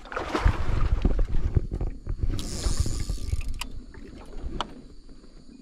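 Knocks and low rumble of people moving about in an aluminium boat, with a short splash of water about two and a half seconds in and a couple of sharp clicks after it.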